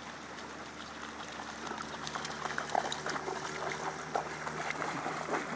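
Dog wading through shallow river water, its legs churning up a run of small splashes that grow louder about two seconds in.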